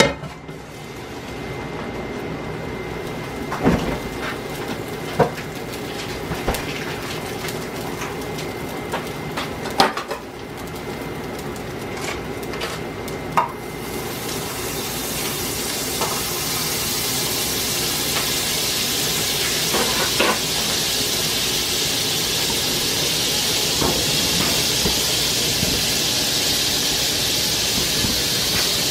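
Scattered clinks and knocks of a pan and cooking utensils, then from about halfway a steady sizzle from a hot frying pan that builds over a few seconds and holds.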